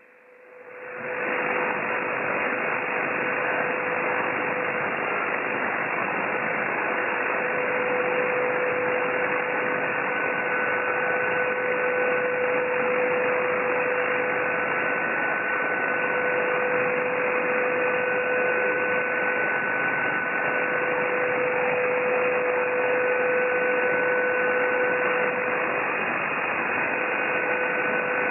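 Shortwave band noise from an SSB transceiver receiving on the 40-metre band in lower sideband: an even hiss cut off above about 3 kHz by the receiver filter, swelling up over the first second as the radio comes back from transmit. A steady low whistle runs through it, with a fainter higher whistle coming and going from about ten seconds in.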